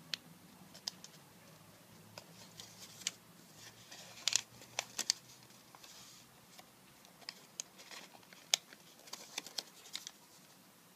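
Origami paper being folded and creased by hand: scattered soft crinkles and sharp little ticks at an uneven pace, a few louder snaps around the middle.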